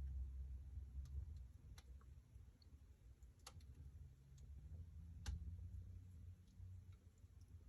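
Wood fire in a fireplace crackling faintly: a few sharp, widely spaced pops over a low rumble.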